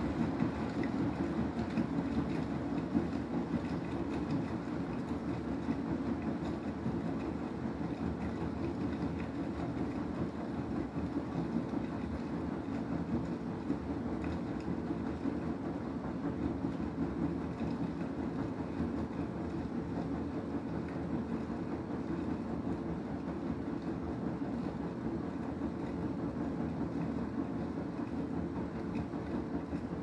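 Beko WTK104121W front-loading washing machine on a drum clean cycle: the empty drum turns steadily, churning and sloshing sudsy water, over a steady hum from the machine.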